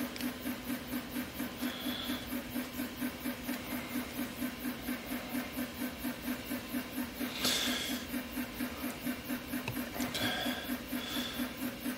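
A steady low hum pulsing at an even rate. Over it come faint handling noises as a glued PETG strip is twisted in the hands, with a brief scraping rustle about seven and a half seconds in, and another just after ten seconds.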